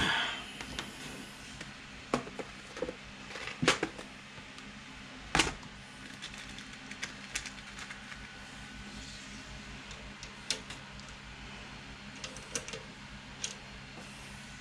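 Scattered clicks and taps of wires and small parts being handled on a silicone work mat, a few louder knocks among lighter ticks, over a low steady hum.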